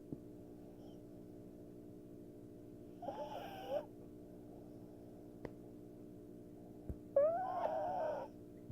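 Black pug snoring in its sleep: two snores about four seconds apart, each a wavering, whistling tone that rises and falls in pitch. The second, near the end, is louder and lasts about a second. A steady background hum runs underneath.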